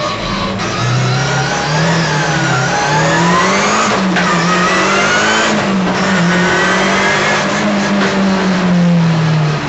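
Ford Escort Cosworth WRC's turbocharged 2.0-litre four-cylinder engine, heard from inside the cockpit, accelerating hard through the gears. The pitch climbs, drops sharply at an upshift about four seconds in, climbs again and shifts once more about a second and a half later, then holds at high revs.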